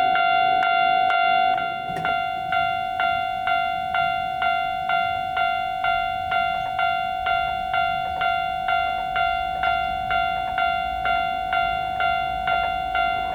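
Japanese railroad crossing warning bell ringing in an even rhythm of about two strikes a second, each bright metallic ding fading before the next. A steadier noise is mixed in for the first couple of seconds and drops away about two seconds in.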